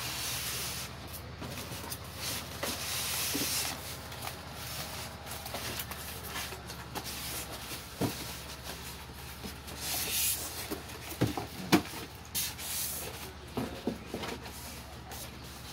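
Polystyrene foam packing blocks and plastic-wrapped parts rubbing and scraping against a cardboard box as they are lifted out, in irregular scratchy bursts. A few sharp knocks come in the second half as parts bump the box.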